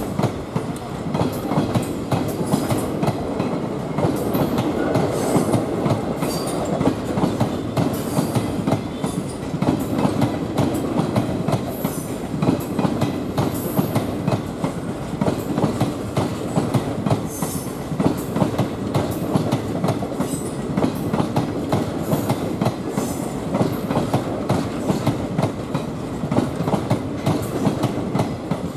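Passenger coaches of an Indian Railways express rolling past, their wheels striking the rail joints in a steady clickety-clack.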